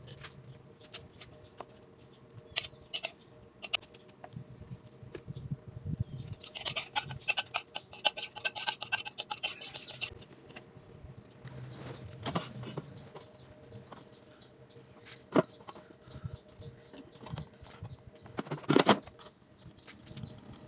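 Food-preparation handling sounds: banana leaves rustling and crinkling while the shrimp-and-egg mixture is scraped out of a bowl onto them, a dense spell of crackling from about a third of the way in. Scattered clicks and light knocks, with one louder knock near the end.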